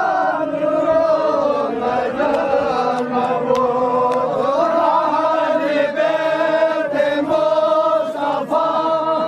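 A group of men chanting a Farsi noha, a Shia lament, together in long held notes that rise and fall.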